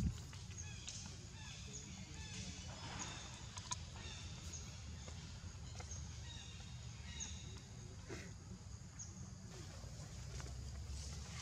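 Small birds chirping, short high chirps repeating about once a second, over a steady low rumble of wind on the microphone.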